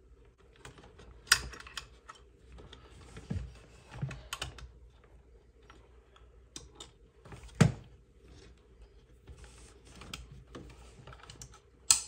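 Plastic clicks and rattles of a relay cover being worked by hand back onto a fridge compressor's terminals, with three sharper snaps: about a second in, a little past halfway, and at the very end.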